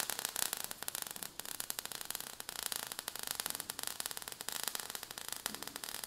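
Faint crackling, fizzing hiss made of many tiny rapid clicks: a sparks sound effect.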